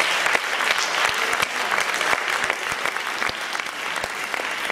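Audience applauding: many hands clapping at once, easing off slightly toward the end.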